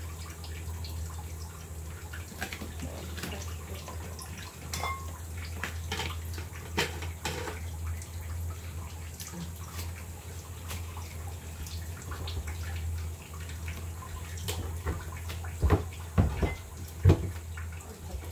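Kitchen water sounds with many small scattered clicks and clatter, over a steady low hum; a few louder knocks come near the end.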